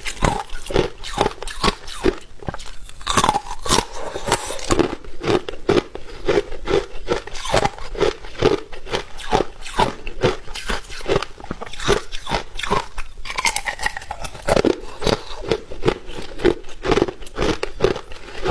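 A person biting and chewing hard ice: a steady run of sharp crunches, a few each second.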